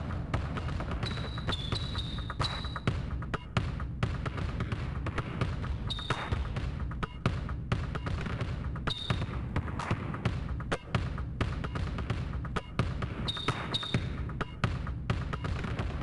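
Basketball dribbling on a hard court in a quick, beat-like rhythm, with short high sneaker squeaks now and then.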